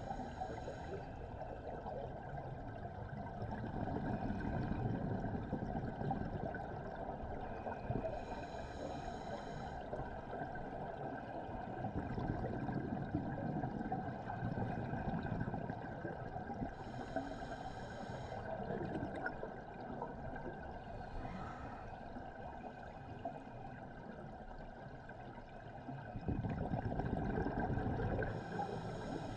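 Scuba diver breathing through a regulator underwater: a hissing inhalation through the demand valve about every nine seconds, with a low rumble of exhaled bubbles in between.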